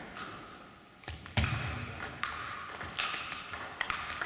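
A table tennis rally: the ball clicks sharply off bats and table, about six or seven times, starting about a second in. The loudest hit, about a second and a half in, comes with a heavier low thump. The hits ring briefly in a large sports hall.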